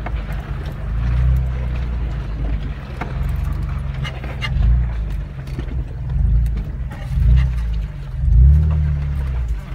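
Jeep Wrangler's engine revving up and falling back several times as it crawls a rough dirt track in four-wheel drive, heard from inside the cab, with scattered clicks and knocks over the bumps.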